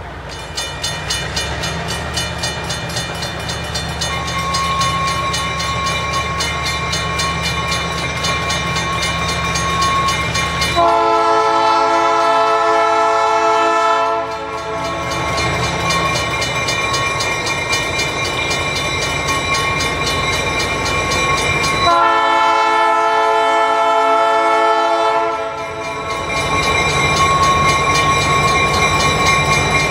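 Diesel switcher locomotive approaching, its engine running and growing louder, with two long horn blasts of about three seconds each, roughly eleven seconds apart.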